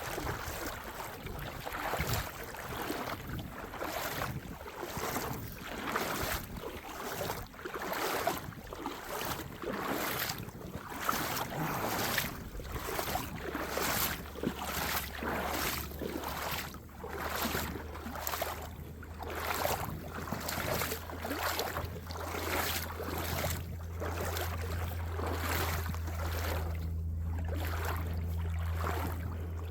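Footsteps crunching over creek gravel and rocks at a steady walking pace. A low steady hum joins in partway through.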